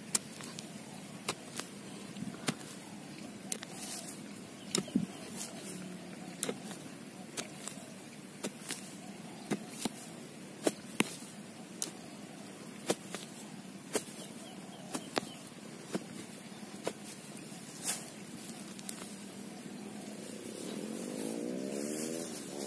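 Iron crowbar jabbing and prying in soil around a plant's root ball, giving repeated sharp knocks at an irregular pace, about one to two a second. A low steady rumble runs underneath and swells near the end.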